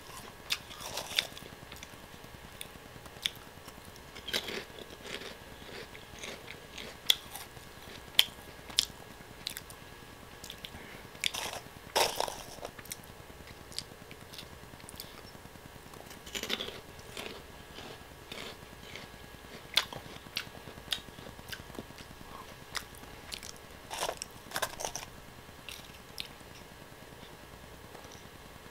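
Biting and chewing crunchy Oh! Gamja potato snack sticks: sharp crunches come in scattered clusters, with quieter chewing between them.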